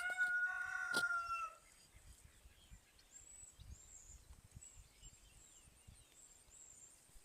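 Rooster crowing: the long held end of the crow, one clear pitched note falling slightly, stops about a second and a half in. Faint high chirps of small birds follow.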